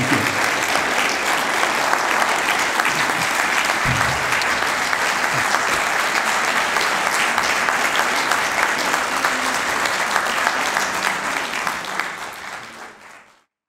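A large audience applauding, a dense steady clatter of many hands clapping that fades out near the end.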